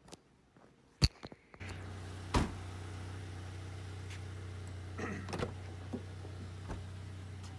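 A car door latch clicks open, the low steady hum of the car's idling engine comes in with it, and the door shuts with a loud thud a moment later; a few light knocks follow inside the cabin over the steady idle.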